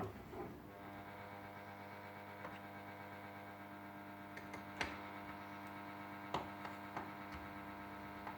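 Ariston Margherita washing machine paused between drum turns during a 60° cottons main wash: the motor's drone stops right at the start, leaving a steady electrical hum and a few faint clicks.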